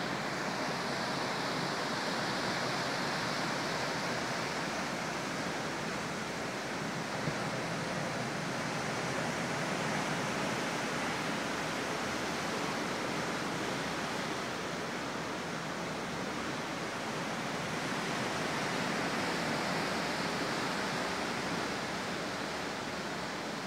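Sea surf breaking and washing onto the shore, heard as a steady, even rush of noise.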